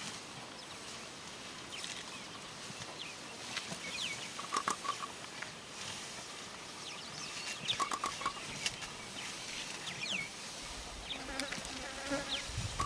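Insects buzzing over a steady hiss of open-air ambience, with scattered soft clicks and short, high, falling chirps. A low rumble comes in near the end.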